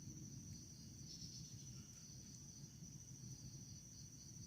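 Faint steady high-pitched insect chirring, like crickets, over a low background rumble.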